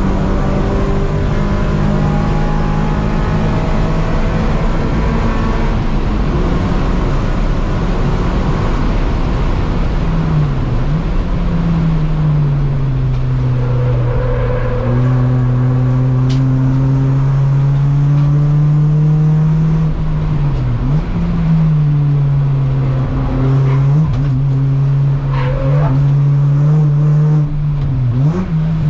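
Honda Accord Euro race car's K24 four-cylinder engine running hard at a steady high pitch, heard from inside its stripped cabin. About four times the pitch dips briefly and climbs straight back.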